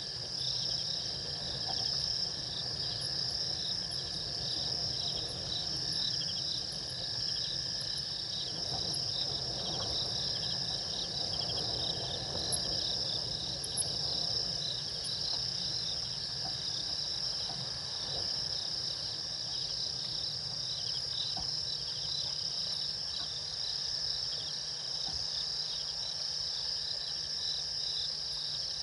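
Steady chorus of night insects: a continuous shrill trill, with a fast pulsing chirp just below it and a fainter steady trill lower down. A low steady hum sits beneath.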